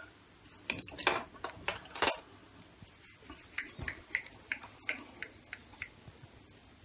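Plastic kulfi moulds being picked up and handled on a stone counter: a series of light clicks and knocks, the loudest about one and two seconds in, then smaller taps as a mould is rolled between the hands.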